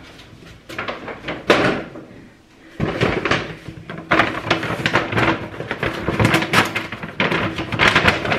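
Groceries being handled and unpacked: a few knocks, then from about three seconds in a continuous crackly rustling of packaging and bags with sharp clicks and bumps.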